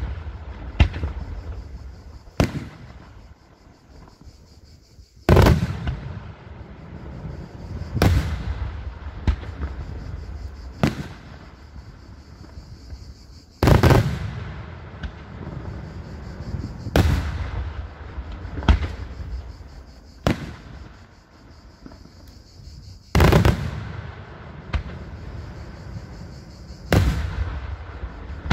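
Daytime fireworks display: aerial shells bursting high overhead, about a dozen sharp booms at uneven gaps of one to three seconds, each trailing off in a low rumbling echo.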